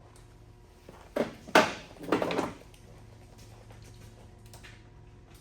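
A short cluster of knocks and clatters from loose dash and trim parts being handled and set down, loudest about a second and a half in, followed by a few light clicks.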